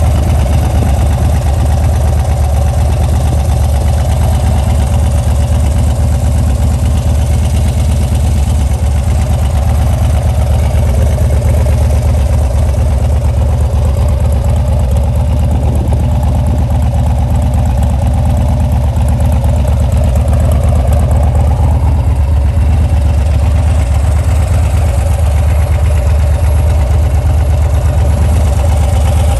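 Harley-Davidson Dyna FXDB's 103 cubic inch V-twin idling steadily through a Bassani exhaust.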